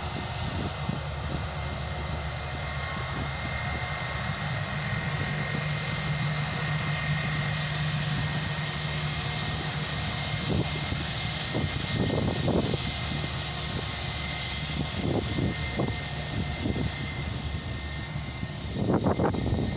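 Airbus A319 jet engines running up to takeoff power on its takeoff roll: a steady roar with a high whine that grows a little louder over the first few seconds. Wind buffets the phone's microphone in irregular gusts over the second half, strongest near the end.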